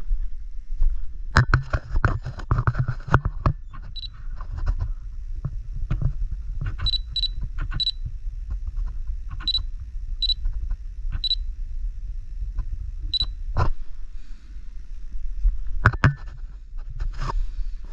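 Digital camera clicking and beeping: a flurry of clicks about a second in, then about eight short, high beeps spread over the next ten seconds, and more clicks near the end, over a steady low rumble.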